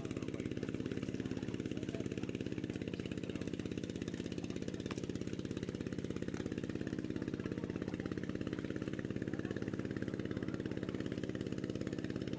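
A small engine idling steadily, with a fast, even pulse that does not change.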